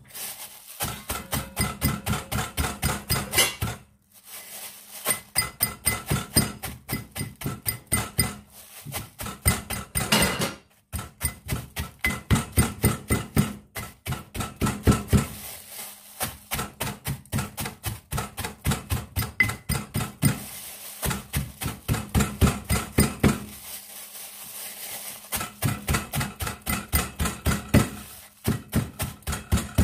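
Wooden pestle pounding dried shrimp in a ceramic bowl: rapid strikes, about five a second, in runs of a few seconds with short pauses between them.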